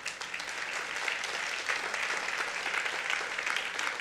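Large banquet audience applauding in response to an announcement.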